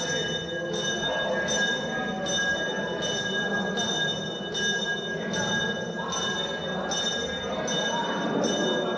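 A bell struck over and over at an even pace, about three strokes every two seconds, each stroke ringing on with steady high tones, over the dense murmur of a crowd.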